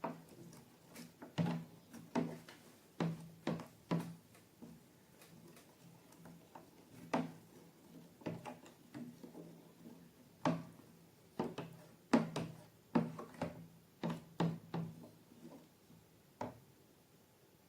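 A series of irregular taps and knocks, one to three a second, each starting sharply and dying away fast with a short low thud beneath it.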